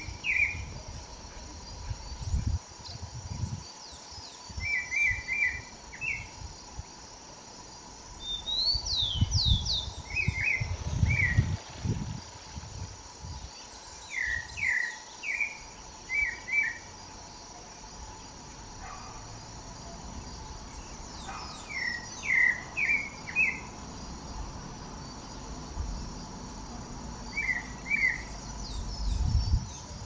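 Pale-breasted thrush singing short phrases of quick whistled notes every few seconds, over a steady high insect drone. Low rumbling comes and goes, strongest about a third of the way in.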